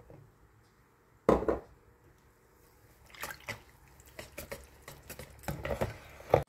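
Metal balloon whisk stirring flour into wet crepe batter in a bowl, its wires clicking and scraping against the bowl in quick, irregular strokes through the second half. A single loud thump comes about a second in.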